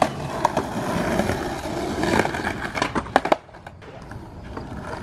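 Skateboard wheels rolling over a stamped-concrete bank, with several sharp clacks of the board hitting the ground, the loudest near the three-second mark; after that the rolling dies away.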